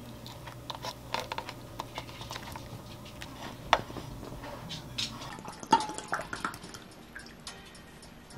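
Thick tteokbokki sauce squeezed from a plastic packet onto a bowl of rice cakes: soft wet squishes and drips. Scattered light clicks and taps, the sharpest about four and six seconds in.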